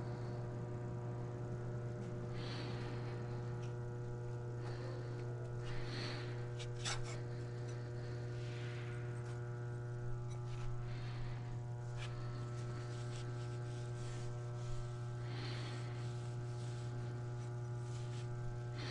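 A steady low hum runs throughout. A few soft rubs and light metallic clicks come and go over it as steel main bearing shells in an engine block are handled and wiped with a rag.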